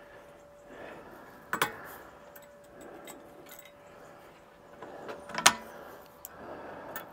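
Small steel workpieces being handled: two sharp metallic knocks about four seconds apart, the second louder, with lighter clinks between, over a faint steady hum.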